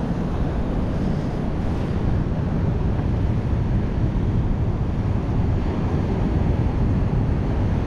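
Steady wind buffeting the microphone over the wash of surf breaking on the beach.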